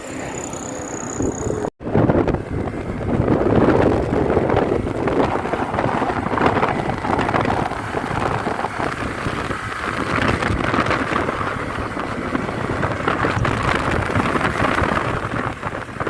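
Wind rushing over the microphone with road and engine noise while riding a Honda Click 125i scooter. The sound cuts out for a split second just before two seconds in.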